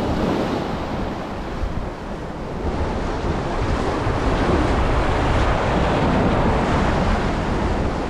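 Waves washing onto a sandy beach in a steady wash that swells in the middle, with wind buffeting the microphone in a low rumble.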